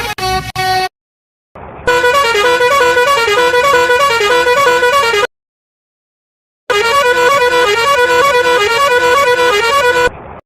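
A musical vehicle horn plays a short tune of rapidly changing notes, sounded twice with a pause between.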